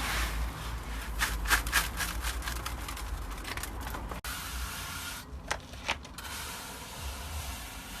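Resin-coated 2–5 mm stone aggregate scraping and clicking as it is tipped out and worked across the ground, in irregular gritty strokes, with a brief break about four seconds in.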